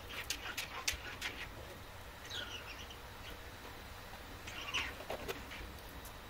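Metal putty knife scraping wax honeycomb and honey off a plastic-foundation hive frame: a quick run of scraping strokes and crackles, then two short squeaks that fall in pitch.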